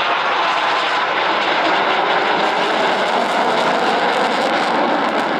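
Steady loud jet engine noise from KAI T-50B jets in flight.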